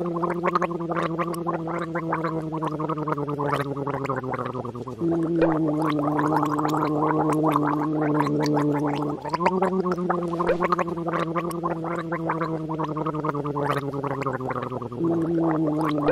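Pembroke Welsh corgi growling in displeasure while its teeth are wiped: four long, low growls back to back, each a few seconds long, slowly sinking in pitch, with a rough, pulsing texture.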